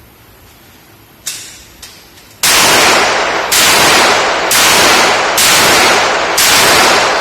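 A .38 revolver fired five times about one shot a second, each report ringing on into the next. A single sharp click comes about a second before the first shot.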